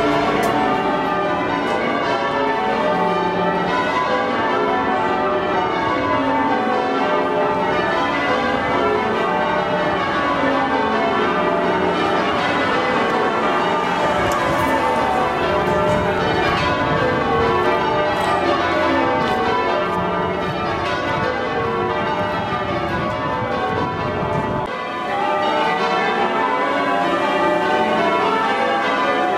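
Church bells change ringing: a peal of tower bells struck in quick succession, the sequences repeating and shifting continuously.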